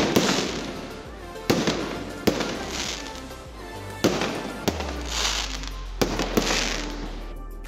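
Aerial fireworks bursting in a string of sharp bangs, about eight over the few seconds, the first and loudest right at the start, with music playing underneath.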